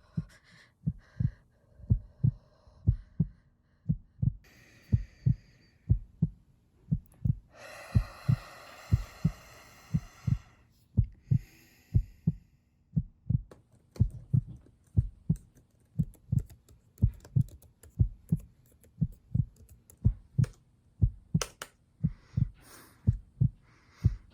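Steady low thumps in close pairs, like a heartbeat, repeating about once a second. A hiss swells in for a few seconds around the middle, and sharper clicks join the thumps near the end.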